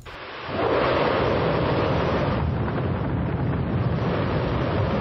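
A loud, steady rumbling roar from the amateur recording of an unexplained 'mystery rumble', swelling up about half a second in and then holding steady.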